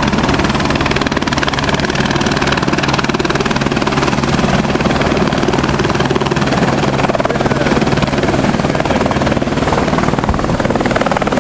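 Light helicopter hovering low and setting down on a helipad: steady rapid main-rotor chop over a constant engine hum.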